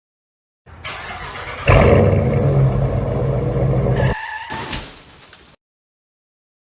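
Car engine sound effect: an engine running, turning much louder about a second in, then dropping away and fading out.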